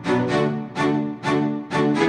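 Background music with a steady pulse of short, repeated notes, about two a second.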